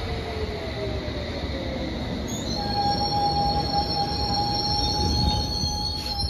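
London Underground S Stock train braking into a platform: the motor whine falls in pitch as it slows, then a steady high squeal sets in about two and a half seconds in and cuts off just before the end as the train comes to a stop, over a low rumble.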